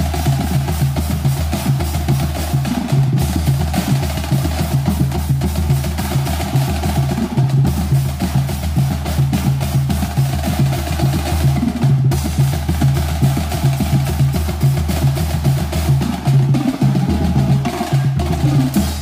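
Marching percussion battery playing: snare drums and multi-drum tenor sets in fast, dense patterns and rolls over deep bass-drum notes, without a pause.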